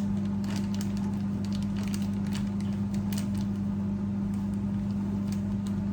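Steady low hum from a running appliance or electrical source in a small kitchen, with a few faint light clicks and knocks of handling.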